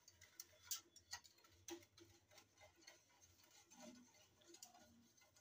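Faint, irregular light clicks of a wire whisk tapping the sides of a steel saucepan while a milk-based chocolate ice-cream mixture is stirred continuously over the heat to thicken it.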